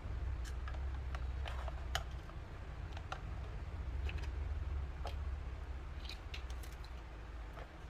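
Small plastic toy kitchen pieces being handled, giving irregular light clicks and taps, about one or two a second, over a low steady rumble.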